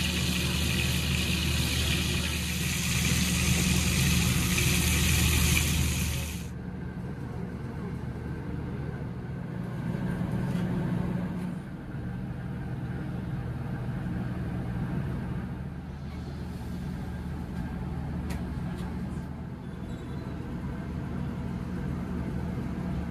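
Beef roast searing in an oiled steel pan, a loud sizzle that cuts off about six seconds in. Under it and after it, a steady low machine hum.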